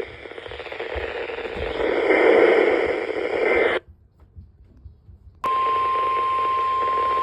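Weather radio static hiss that cuts off suddenly about four seconds in. After a brief silence a steady single-pitch alert tone starts and holds: the NOAA Weather Radio 1050 Hz warning alarm tone, which signals that a warning broadcast follows.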